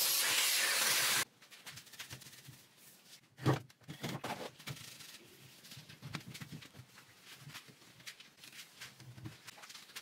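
Handheld steamer hissing steadily against the chair's wooden frame, then cutting off suddenly about a second in. After it come soft rubbing and handling sounds, with one short knock about three and a half seconds in.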